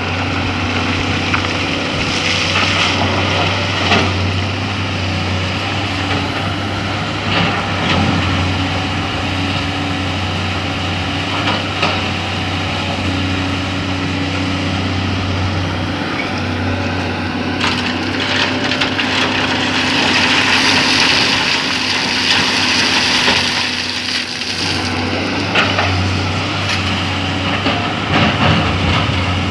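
Excavator engine running steadily under work, with scattered knocks of the machine and bucket working sand. About two-thirds of the way through, there is a louder, hissier stretch lasting several seconds.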